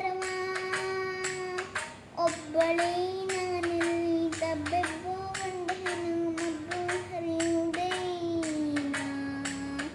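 A young girl singing in long held notes, with a short break about two seconds in and a lower note near the end. Sharp claps or taps keep a steady beat behind her, about three a second.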